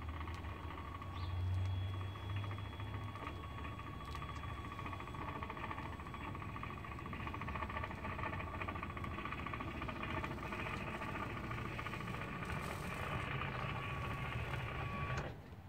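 Electric RV awning motor running steadily as it extends the awning, with a steady whine. It cuts off suddenly near the end.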